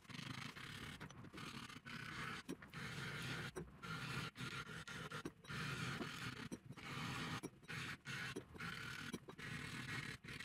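Hand file scraping across the edge of a thick metal disc clamped in a vice, in repeated strokes about once a second with short pauses between them, evening out small steps in the disc's edge.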